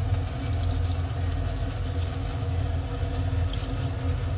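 Boiled water being poured from a pot into a large aluminium cooking pot full of raw chicken pieces, a steady splashing stream, over a steady low hum.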